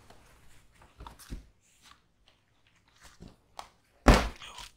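Scattered soft knocks and rustles close to the microphone, then a loud rustling burst about four seconds in, as a person moves right up against the camera.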